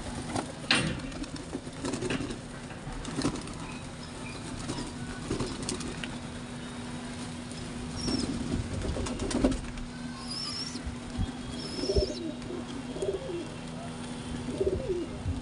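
A flock of domestic pigeons feeding on scattered grain: wings flapping and rustling, beaks pecking the ground in sharp scattered clicks, and low cooing mostly in the second half.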